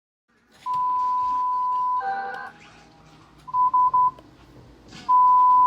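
Emergency alert tones: a steady electronic tone for about a second and a half, a brief chime-like sound, three quick beeps, then a louder steady tone near the end.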